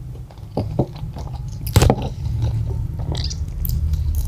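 Close-miked chewing of tender, juicy fried chicken meat by two people: soft wet mouth sounds and small lip smacks, the sharpest about two seconds in, over a steady low hum.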